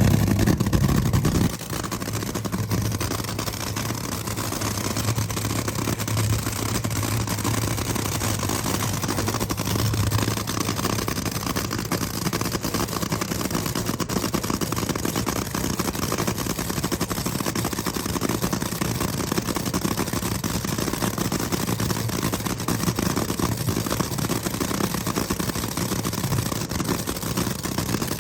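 An engine running steadily, louder for the first second and a half, then settling to an even, rapidly ticking run.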